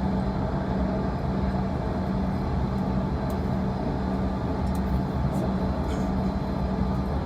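Steady cabin hum of a Bombardier CRJ-200 on the ground after landing, its rear-mounted General Electric CF34 turbofans running at low ground power, with a low drone throughout.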